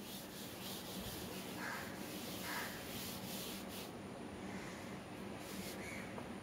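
Chalkboard eraser wiping across a chalkboard in faint, repeated rubbing strokes that ease off after about four seconds.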